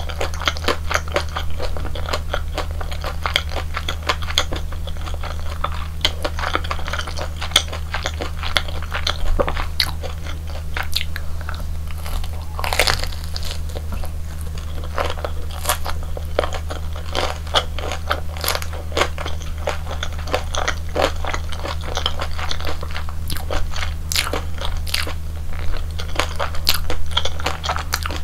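Close-miked crunching and chewing of the crispy deep-fried batter of a Korean hotdog: quick crackly bites throughout, with one especially loud crunch about halfway through, over a steady low hum.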